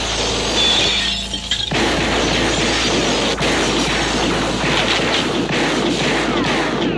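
Shootout: rapid gunfire with glass shattering and smashing, a dense continuous racket with a brief let-up about a second in.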